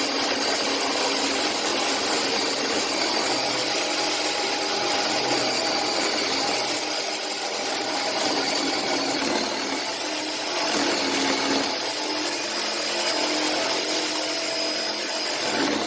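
A power tool running steadily, with a continuous high whine over a steady mechanical noise.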